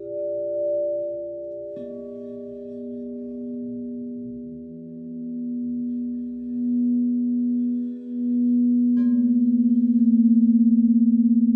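Several crystal singing bowls ringing together in long, steady, overlapping tones. A lower bowl tone comes in about two seconds in and swells, and another bowl is struck about nine seconds in. The sound grows louder with a pulsing waver near the end.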